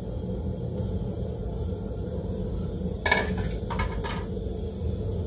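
A metal ladle clinks against an aluminium cooking pot about four times in quick succession, about three seconds in, over a steady low rumble.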